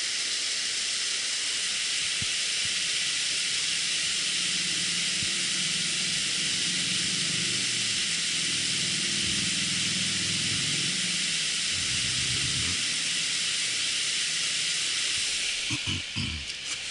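Steady rush of river water pouring over a weir and through rapids, a constant hiss. A few brief handling knocks near the end.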